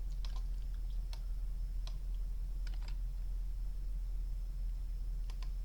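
A few scattered clicks from a computer mouse and keyboard, singly or in quick pairs about a second apart, over a steady low hum.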